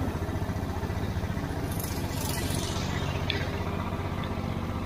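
Go-kart engines idling steadily in the pit lane, a low, even putter.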